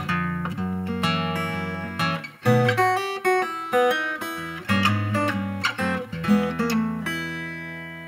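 Background music on acoustic guitar, picked and strummed, ending on a chord that rings out and fades near the end.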